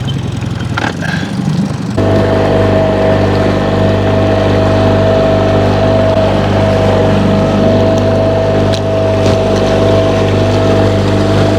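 Boat motor running steadily, with a steady whine over a low hum, cutting in abruptly about two seconds in.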